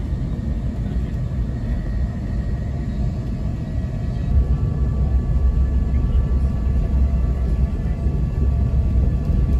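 Acela Express train at speed, heard inside a passenger car: a steady low rumble of running noise with faint steady whine tones above it. The rumble grows louder about four seconds in, and the sound cuts off abruptly at the end.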